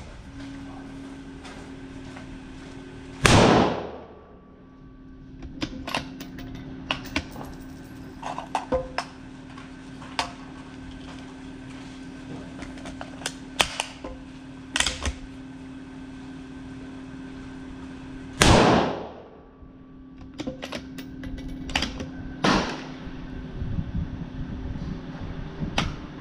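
Two rifle shots from a Black Creek Labs Bison MRX in .223, about fifteen seconds apart, each with a short echo. Between them come smaller sharp clicks and knocks, over a steady low hum.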